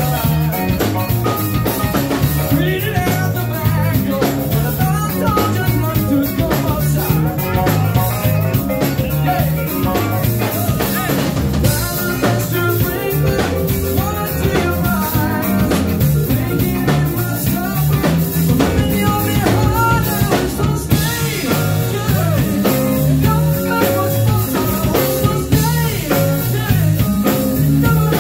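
A live band playing a song: drum kit keeping a steady beat under electric guitar and keyboards, with a lead vocal.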